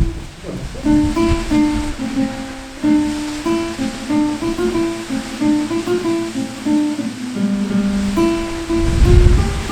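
Relaxation music: an acoustic guitar picking a slow melody of single plucked notes, with a low rush of water swelling up again near the end.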